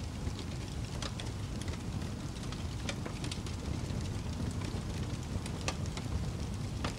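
Steady rain ambience, an even rushing hiss with scattered sharp crackling clicks.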